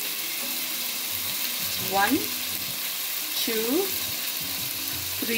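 Onion and ginger-garlic frying and sizzling in olive oil in a pot, with three short rising squeaks about two, three and a half and five seconds in.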